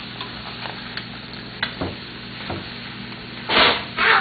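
Hot dogs and eggs frying in a pan with a steady sizzle, while a utensil stirring them clicks against the pan now and then. Two louder bursts of noise come near the end.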